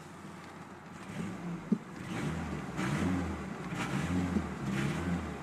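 A 1997 Ford Ranger's 2.3-litre four-cylinder engine, heard from inside the cab, blipped up from idle about four times in short revs. There is a single click just before the first rev.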